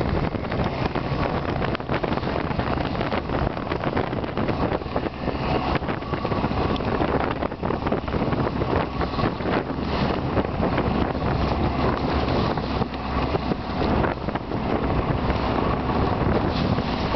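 Steady wind buffeting the microphone over the running engine of a small motor boat, with choppy water washing past the hull.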